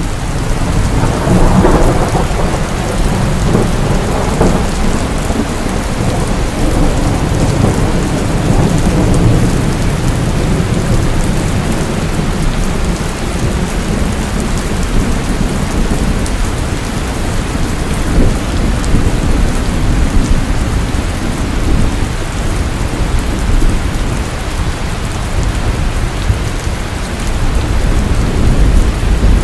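Steady rain falling at night, with a deep rolling rumble of thunder that swells about a second in and carries on underneath the rain.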